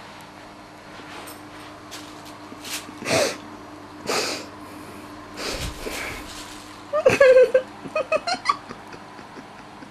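A thin plastic carrier bag crackling in short bursts as a cat pounces on it and paws at it. Near the end comes a quick run of short, sharp, pitched squeaks, the loudest sounds here.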